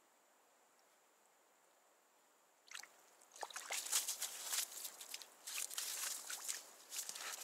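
Near silence, then about three seconds in a fish is hauled splashing out of an ice-fishing hole and flops about on the wet ice, with irregular wet slaps and water dripping and sloshing.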